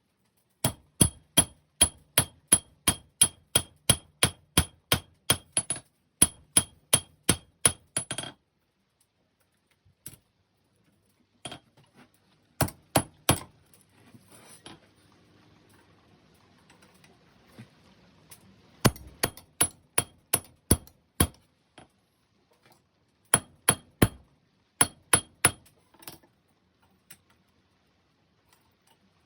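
Forging hammer striking hot 5160 steel on an anvil in runs of quick, even blows, about three a second, each with a bright metallic ring. A long run of about twenty blows stops about eight seconds in, then shorter runs follow after pauses.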